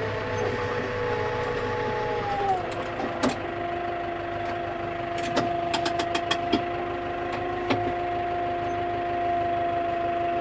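Skid steer engine running, its note dropping about two and a half seconds in and then holding steady, with a few sharp clicks and knocks over it.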